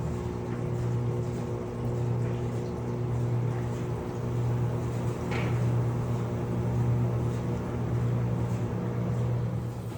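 Electrolux LPE16 washing machine running its wash with a double comforter inside: a steady motor hum that swells and dips about once a second, with a brief splash-like sound about halfway through.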